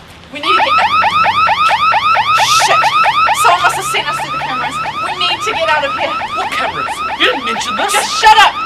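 Electronic alarm going off abruptly, a loud, rapid rising chirp repeating about six times a second. A louder burst of noise cuts in near the end.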